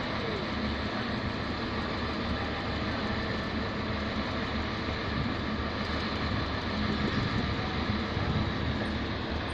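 Steady running of a pile-driving rig's engine, an even mechanical drone with a low hum, with no distinct hammer blows.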